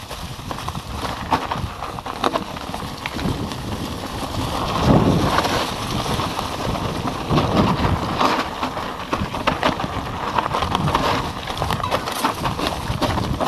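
Mountain bike rattling down a rocky trail: tyres crunching over stones and dry leaves, with irregular knocks and clatter from the frame and chain as it bounces over rocks, rougher about five seconds in.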